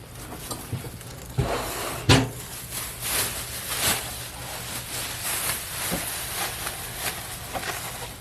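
Packaging and grill parts being handled: a sharp knock about two seconds in, then steady rustling and scraping with scattered crackles.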